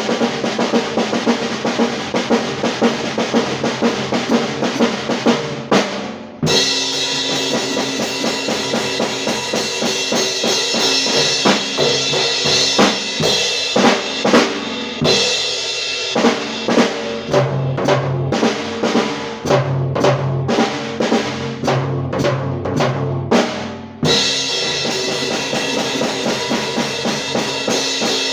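Isolated pop rock drum kit track: kick and snare playing a steady beat. There are brief drop-outs about six seconds in and again near the end, where the pattern changes.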